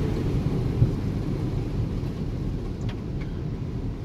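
Steady low rumble of a car being driven, heard from inside the cabin, with a single short knock about a second in.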